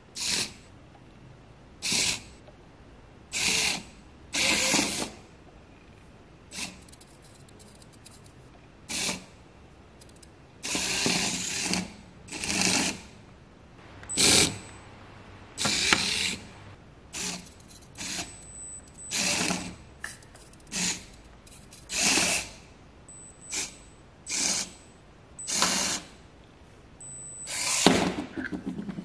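SNT Y60 micro 4WD RC car's tiny electric motor and gear drive whirring in short throttle bursts as it crawls, about twenty stop-start runs mostly under a second each, with one longer run about eleven seconds in.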